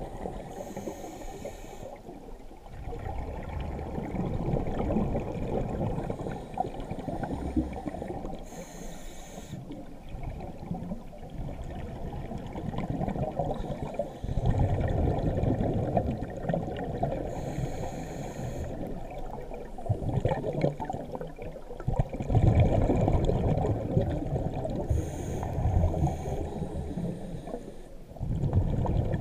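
A diver breathing through a scuba regulator, heard underwater and muffled. There is a short hiss on each inhale, then a longer low bubbling rumble as each exhale vents, about every eight seconds.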